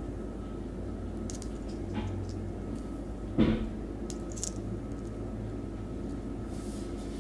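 Handling noise: small clicks from hands working a jig head and spinner blade, with one louder bump about three and a half seconds in. A steady low hum runs underneath.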